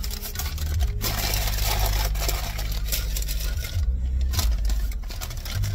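Rustling and scraping handling noises with scattered clicks over a steady low rumble inside a car cabin.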